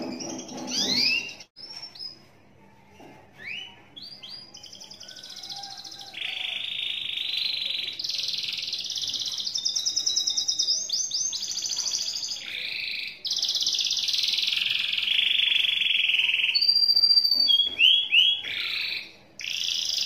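Domestic canary singing a long, unbroken ngekek song: fast rolling trills held for several seconds at a time, with quick rising whistles in the first few seconds and short separate phrases near the end.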